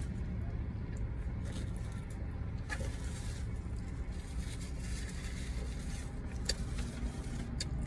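Steady low hum of a car cabin, typical of an idling engine, with close-up chewing and a few short clicks.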